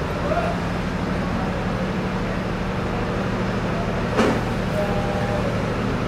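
A steady low motor hum, like an engine running, with a single sharp knock about four seconds in.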